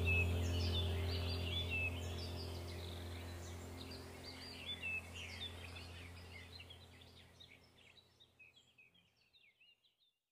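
Background track of birds chirping over a low, steady hum, the whole track fading out gradually and gone just before the end.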